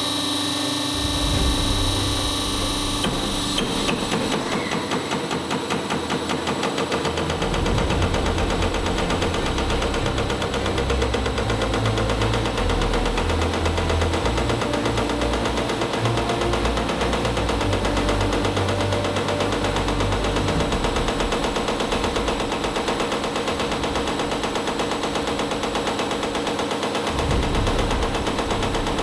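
Delphi 4-pin electronic unit injector for a Volvo diesel running on an injector test bench. It fires in a rapid, steady machine-gun-like clicking while the bench drive hums underneath, the hum rising and falling in level.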